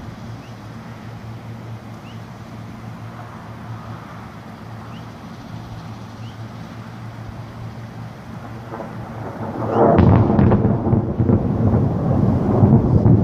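Thunder: about ten seconds in, a sudden crack opens into a loud, low rolling rumble that keeps going, over a steady low background hum.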